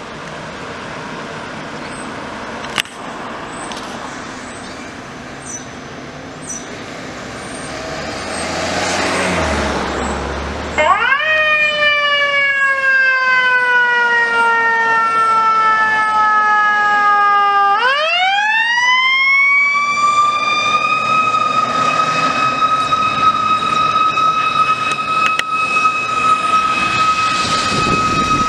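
Fire engine's Q siren, pinned. After about ten seconds of street traffic noise it comes in suddenly and loud, slowly winds down in pitch over about seven seconds, then winds back up and holds a steady high wail.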